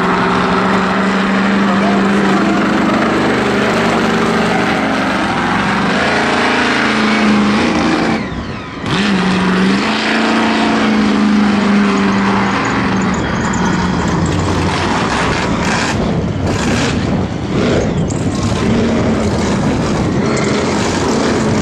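Monster truck engine under heavy throttle as the truck drives around a dirt track, its pitch rising and falling with the revs. About eight seconds in the revs drop briefly, then climb again.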